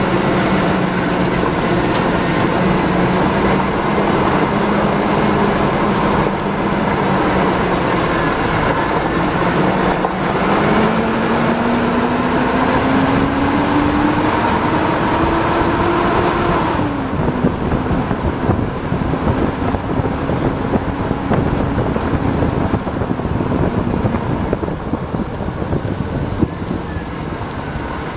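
Chevy monster truck's engine running, heard close to the tailpipe: a steady exhaust drone that climbs slowly in pitch, drops off abruptly about two-thirds of the way through, then runs on steadily at a lower pitch.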